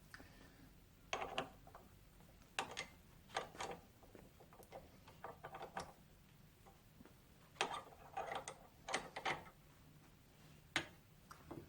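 Intermittent metal clicks and clunks in small clusters as tooling is handled and set up on a milling machine, with no motor running.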